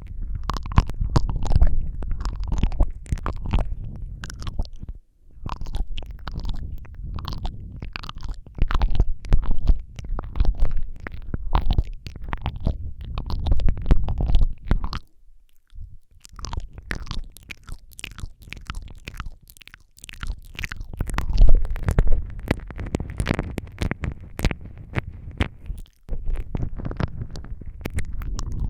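Close-miked wet mouth sounds into a Rode microphone: rapid tongue clicks, smacks and licking, with heavy low rumbling from breath and contact on the mic. They stop briefly three times, longest about halfway through.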